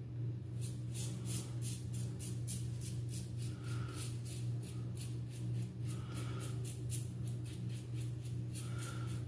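Rapid short scraping strokes of a single-edge Razor Rock Hawk V2 razor across lathered stubble, about three or four a second, over a steady low hum.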